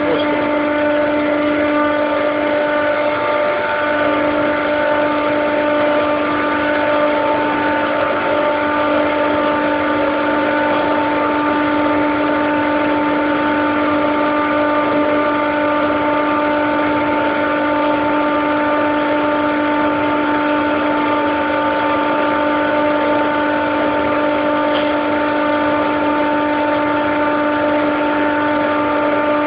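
Daikin EWLDJ235-SS chiller compressor running with a steady drone: several held pitched tones over a rushing noise, never changing. It is the compressor sound the owner finds strange.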